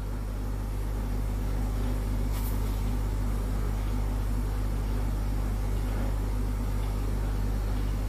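A steady low hum with a faint hiss, and one faint click about two and a half seconds in; no ringing tone is heard.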